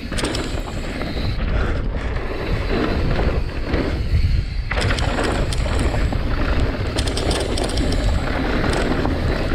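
Mountain bike being ridden downhill on a dirt trail: heavy wind rush on the microphone over rolling tyre noise, with a few sharp clacks and rattles from the bike over bumps.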